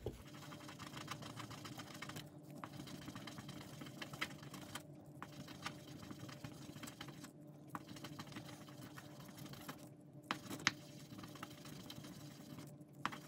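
Resin die rubbed by hand on a wet sheet of fine light-blue polishing paper: faint, fast scratchy rubbing, broken by short pauses about every two and a half seconds, with a couple of sharper clicks.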